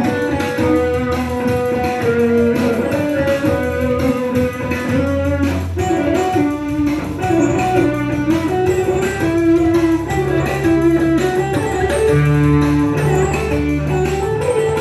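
Double-neck electric guitar played with two-handed tapping through effects pedals and an amplifier: held low bass notes under a running melody of higher notes.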